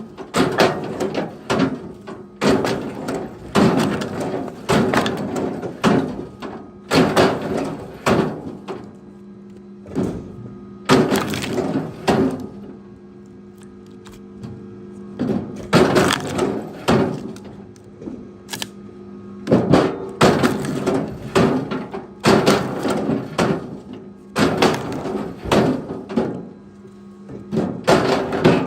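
Pieces of firewood knocking and clattering together as they are thrown or stacked, in repeated bursts every second or two, over a steady low hum.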